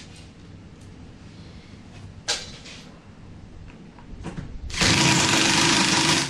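A couple of light clicks, then a power tool runs in one loud burst of about a second and a half near the end.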